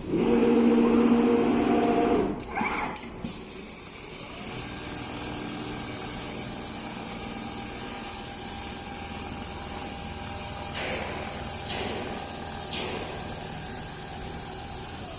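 Automatic large-panel sewing machine running. For about the first two seconds a louder motor whine holds several steady pitches. It then settles into a steady mechanical hum with a constant high whine, and a few faint rustles come near the end.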